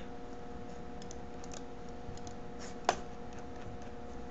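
Faint scattered clicks of a computer mouse being used to drag and drop items, with one louder click about three seconds in, over a faint steady hum.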